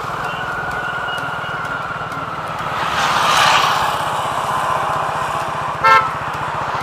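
Motor vehicle engine running steadily with a fast low pulsing, while a passing vehicle swells up and fades away about halfway through. A short vehicle horn beep sounds near the end.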